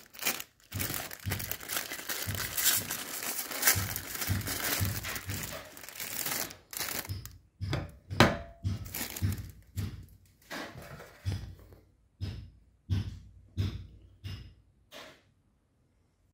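Crinkly plastic ice cream bar wrapper being torn and peeled off, a dense crackling rustle for the first seven seconds or so. It is followed by a string of shorter separate rustles and knocks. The loudest of these comes about eight seconds in, and they stop about fifteen seconds in.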